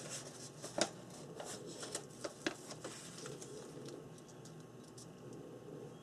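Paper being handled and pressed down by hand: light rustling with a handful of sharp crinkles and clicks in the first half, quieter after.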